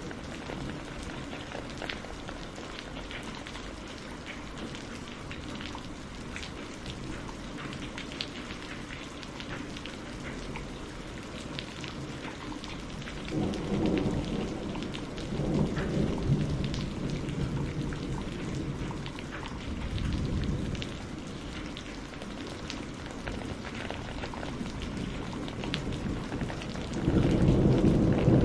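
Steady rain pattering down, with low rumbles of thunder rolling in about halfway through and again, louder, near the end.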